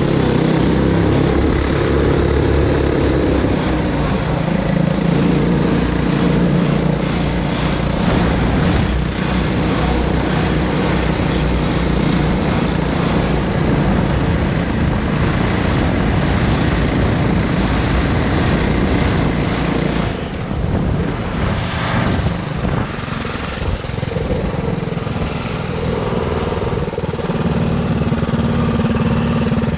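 Go-kart's two Tillotson single-cylinder four-stroke engines with headers and mufflers, running hard under load through torque converters as the kart picks up speed. They ease off about two-thirds through, then pull again near the end.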